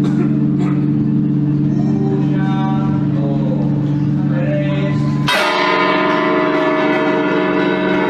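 Valencia Cathedral's Micalet tower bells ringing the solemn toll for the dead, with many bells sounding at once and overlapping hum tones. About five seconds in, the sound switches abruptly to brighter, higher bells struck in quick succession. In this toll nine of the tower's eleven bells are rung, some at great speed, with the volume rising and falling.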